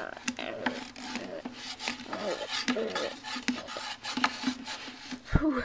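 Plastic toy monster figures being rubbed and knocked together in a mock fight: rasping scrapes and many sharp clacks, with a heavier thump near the end.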